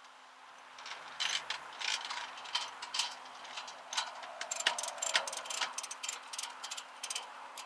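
Irregular, rapid mechanical clicking and rattling that starts about a second in and continues in uneven bursts.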